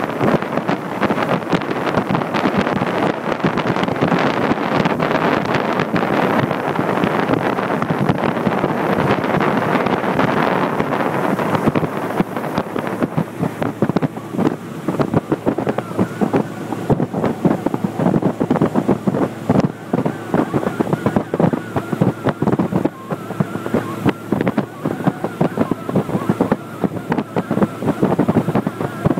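Small boat's motor running steadily while the boat travels along the water, with wind buffeting the microphone, more choppily in the second half.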